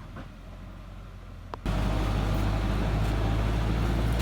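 A steady engine hum that, after a short click about one and a half seconds in, turns suddenly much louder, with a dense noise over the running engine.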